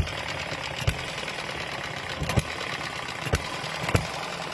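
Miniature hit-and-miss engine running with a steady mechanical clatter. A sharp bang marks each firing stroke, five of them at uneven gaps about a second apart, since it fires only occasionally. The engine is still cold and not yet settled down.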